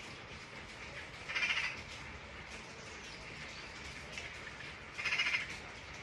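Steady rain with scattered drips, and twice a short, harsh bird call about four seconds apart, each louder than the rain.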